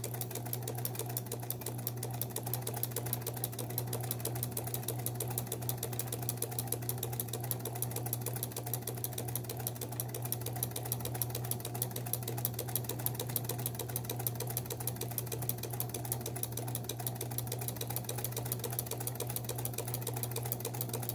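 Kenmore 158.1603 sewing machine running steadily, its needle stitching rapidly over a steady motor hum, while a monogram attachment moves the fabric to sew a letter.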